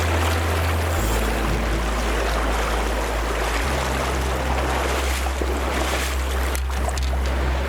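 Rushing river water with low, held background-music notes underneath that change pitch about a second in and again near the middle.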